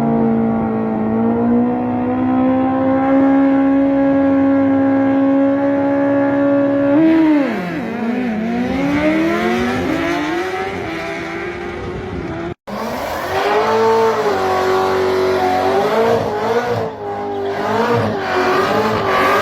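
Race car engine running at high revs, held steady for about seven seconds, then falling and rising in pitch several times. After an abrupt cut, an engine revs with quick small rises and falls in pitch.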